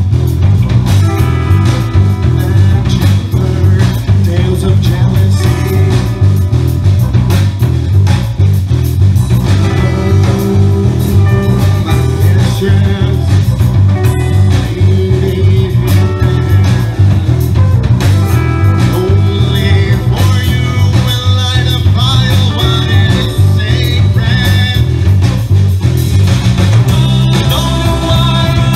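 Live progressive rock band playing loudly, with electric guitar, bass guitar and a drum kit, and a man singing.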